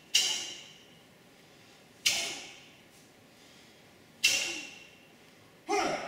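Taekwondo uniform (dobok) snapping sharply with each technique of the Hwa-Rang pattern, four cracks about two seconds apart, each fading briefly in the hall's echo; the last one, on the closing knife-hand guarding block, is fuller and lower.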